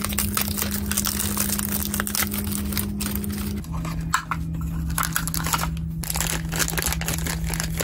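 Small cardboard blind box being opened by hand and a toy figure in a crumpled plastic wrapper pulled out and handled: dense, irregular crinkling and rustling with many small clicks.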